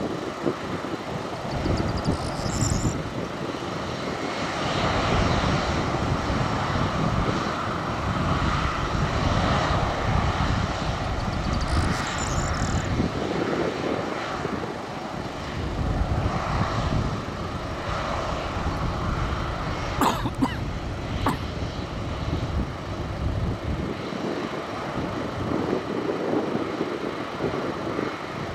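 Four CFM56-5C turbofan engines of an Airbus A340-300 running at low taxi thrust, a steady jet rush that swells and eases as the airliner taxis. Two sharp clicks come about twenty seconds in.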